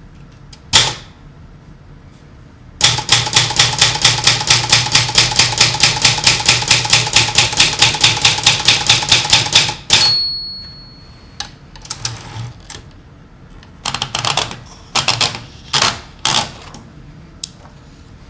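Typewriter keys striking: a single strike, then a fast, even run of about five strikes a second for some seven seconds. That run ends in a louder strike followed by a brief high ringing tone, like the typewriter's bell. Then come a few scattered strikes.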